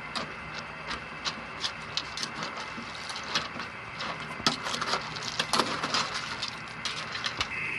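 Metal ladle stirring snails in coconut milk in an aluminium pot: irregular clinks and clicks of the ladle against the pot and the snail shells, over a steady hiss.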